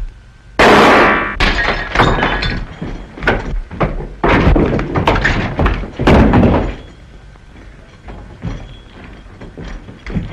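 Revolver gunfight: a loud shot with ringing about half a second in, then a rapid run of further shots over the next six seconds, stopping suddenly.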